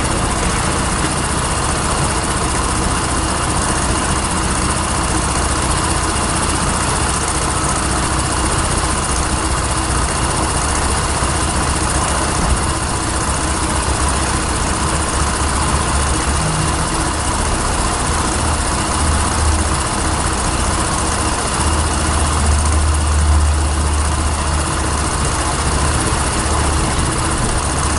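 A KYMCO GP125 scooter's single-cylinder four-stroke engine idling steadily, already warmed up, with a low hum that grows louder for a couple of seconds late on.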